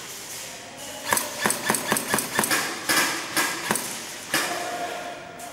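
Airsoft gunfire: an irregular run of sharp cracks, about a dozen in under three seconds, starting about a second in, with one last shot about a second later.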